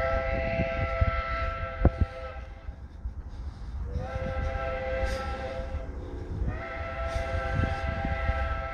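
Locomotive air horn sounding three long blasts. Each is a chord of several steady tones, and the later two bend up in pitch as they start.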